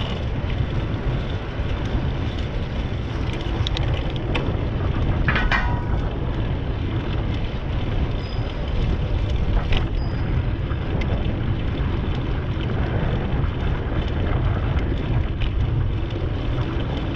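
Wind buffeting the microphone of a camera riding along on a moving bicycle, a steady low rumble mixed with tyre noise on asphalt. A brief clatter comes about five seconds in.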